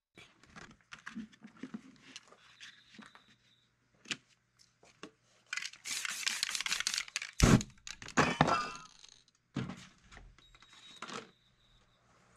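Spray paint art stencilling: a spray paint can is handled and the paper stencil is pressed down, with scattered clicks and taps. About halfway through, a burst of aerosol spray hisses and ends in a heavy thump, followed by more hissing and crackle and a few more taps.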